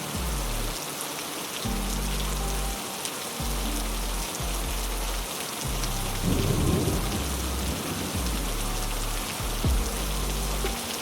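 Heavy rain falling steadily, with a low rumble of thunder swelling about six seconds in.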